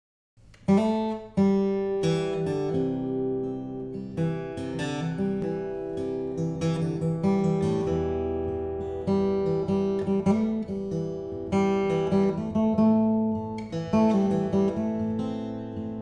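Solo acoustic guitar playing an instrumental introduction, chords picked and strummed and left ringing, starting just under a second in.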